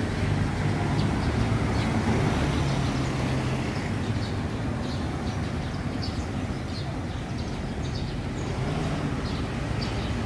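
City street traffic: a vehicle engine runs with a steady low hum for the first few seconds, then fades into a general wash of passing-traffic noise. Faint, short bird chirps come in the second half.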